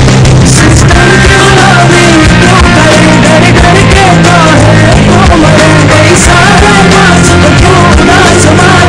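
Background music: an instrumental passage between sung lines of a sad Hindi-Urdu song, with a wavering melody over steady bass notes and a beat.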